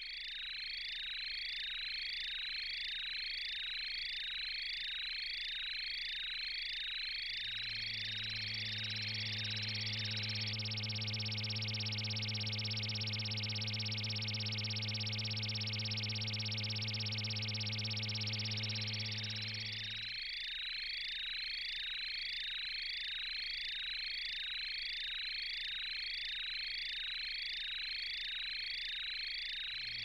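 Electronic science-fiction sound effects: a rapidly repeating falling chirp, about two a second, gives way about seven seconds in to a steady low electric buzz with a hiss over it, and the repeating chirps come back about twenty seconds in.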